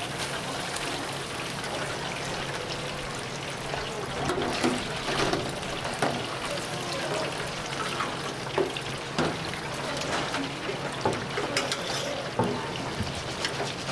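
Chicken pieces deep-frying in hot oil, a steady sizzle, with scattered sharp clinks of metal utensils.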